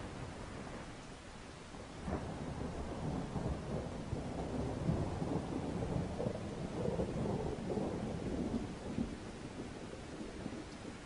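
Low rolling rumble of thunder with rain, swelling about two seconds in and slowly fading toward the end.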